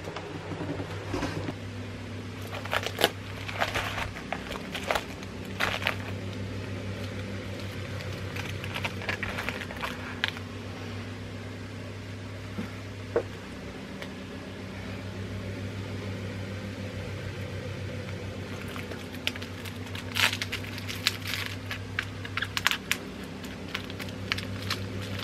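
Clear plastic bags and bubble wrap crinkling and crackling as they are handled, in irregular bursts with a quieter stretch in the middle, over a steady low hum.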